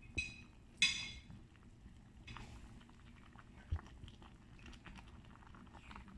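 Serving spoon stirring and lifting chunks of meat and vegetables in a pot of soup, quiet overall: a couple of short squeaky scrapes about a second in, then soft clicks and a dull knock.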